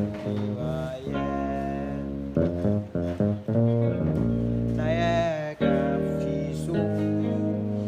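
Bass guitar playing a walking bass line with passing notes in a praise-song groove.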